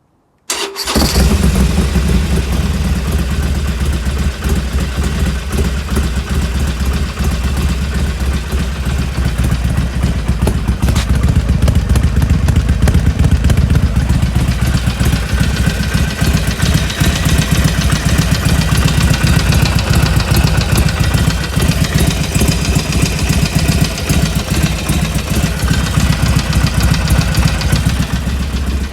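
Harley-Davidson Iron 1200's air-cooled 1200 cc V-twin running at a steady idle, starting abruptly about half a second in. It carries a noise that the owner takes for abnormal and that keeps going even with the engine warmed up.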